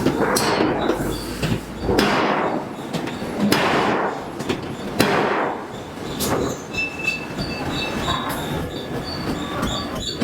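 Hydraulic forging hammer striking a hot steel billet, a heavy blow about every one and a half seconds, each with a noisy hiss and clatter after it and a high metallic squeal ringing between blows.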